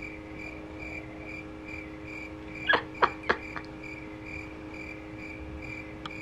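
Cricket chirping sound effect: a steady run of high chirps, a little over three a second, over a faint steady hum. About three seconds in, three short sharp sounds cut through it.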